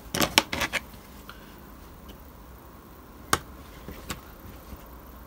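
A few light clicks and taps from small hobby tools and card being handled on a cutting mat: a quick cluster in the first second, then single clicks about three and four seconds in.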